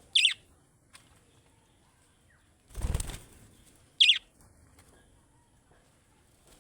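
Budgerigar giving two short, sharp chirps about four seconds apart, each with a quick downward sweep. A brief rustling burst comes between them.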